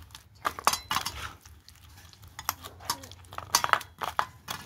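Scattered light clinks and taps against steel bowls and plates as boiled potato is mashed and mixed by hand in a steel bowl.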